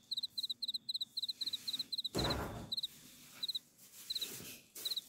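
Cricket chirping in short, evenly spaced double chirps, about four a second. From about two seconds in, brief rustling and knocking from a refrigerator being opened and food being put inside.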